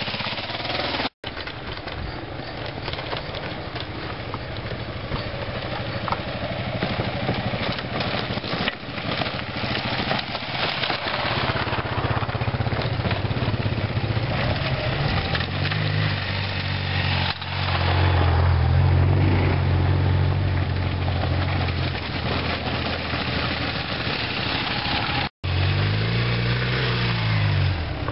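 Dual-sport motorcycle engine running on an off-road trail, first under a rushing wash of wind and riding noise, then steady and loud. It revs up and back down twice as the bike works over steep dirt mounds. The sound drops out briefly twice.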